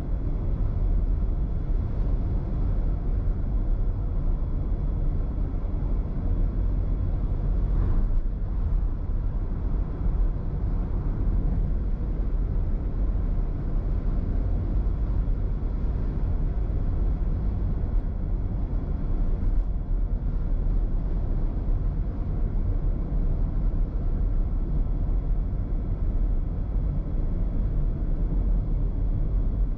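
Steady low road rumble of a car driving at speed on an expressway, with no change in pace.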